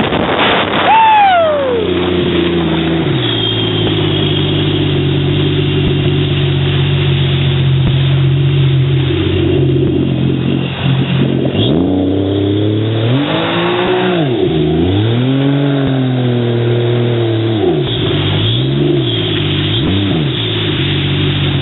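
Jet ski engine running. Its pitch drops sharply as the throttle comes off about a second in, then holds steady. From about halfway it revs up and down several times.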